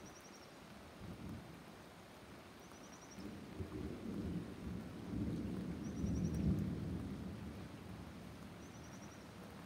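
Thunder rumbling: a faint roll about a second in, then a longer rumble that builds from about three seconds in, is loudest a little past the middle, and dies away near the end, over a light hiss of rain. A short high trill of a few quick notes repeats about every three seconds.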